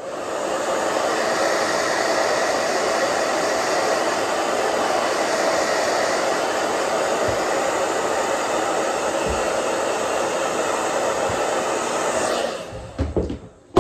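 Handheld hair dryer blowing steadily on one setting. It switches on just after the start and cuts off about a second and a half before the end, followed by a few soft handling knocks.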